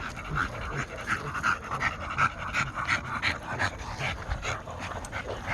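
A dog panting hard and steadily, about three breaths a second: the heavy panting of a dog worn out and overheated.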